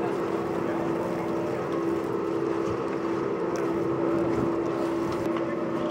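A motor or engine running steadily at one unchanging pitch, with a steady hiss beneath it.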